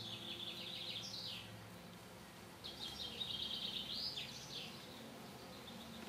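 A songbird singing two fast trilled phrases about two seconds long, each ending in a rising flourish, over quiet outdoor background noise.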